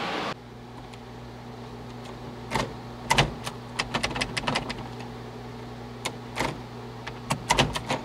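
Scattered clicks and light knocks of hands handling a car's floor shifter assembly and its plastic trim and wiring, over a steady low hum.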